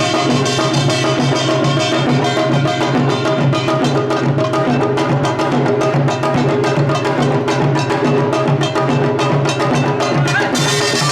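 Samul nori percussion ensemble playing a fast, dense rhythm. Clattering small gongs and drum strokes run over the held ringing of the gongs.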